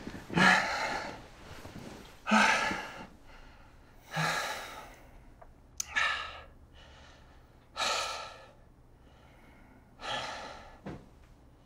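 A man breathing heavily through an open mouth: six long sighing exhales about two seconds apart, growing fainter.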